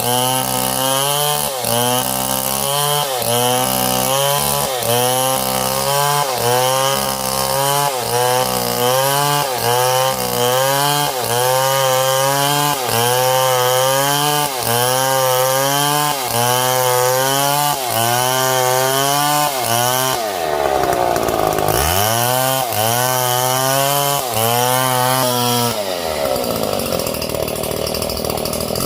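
Small chainsaw running under load while cutting wood, its engine pitch rising and falling about once a second. About two-thirds of the way through, the pitch drops low and climbs back up.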